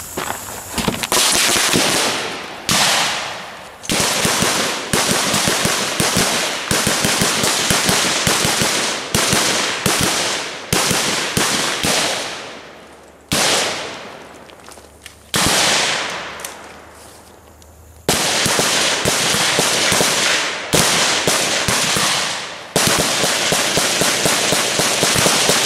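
Rapid rifle fire from two shooters, shots coming in fast overlapping strings with a few short pauses.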